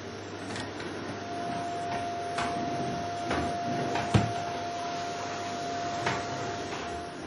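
Vacuum cleaner running on a wooden floor: a steady motor whine over a constant rush of air. A few short sharp knocks come through, the loudest just after four seconds in.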